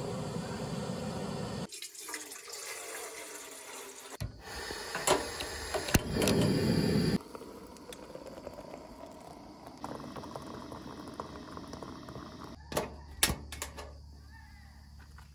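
Hot water poured from a kettle into a French press, filling it. Near the end come two or three sharp metallic clicks as the camp oven's door is opened.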